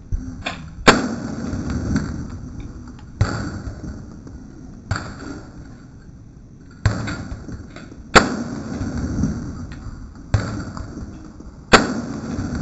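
AR-15 rifle firing .223 Remington in slow semi-automatic single shots, about seven spaced one to two seconds apart. Each shot is a sharp crack with a short echo, and some are louder than others.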